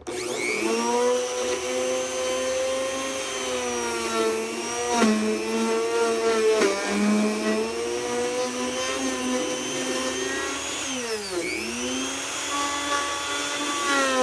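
Black & Decker electric router switched on and spinning up to a high whine, then running under load as the bit cuts into the wood, its pitch sagging several times as the bit bites. About three-quarters through, the motor slows sharply and then spins back up.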